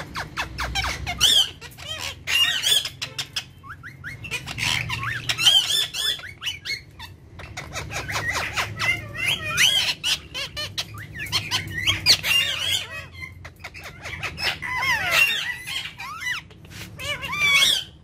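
Indian ringneck parakeets chattering: a busy run of short squawks and chirps with quick rising and falling whistles, broken by a few brief pauses.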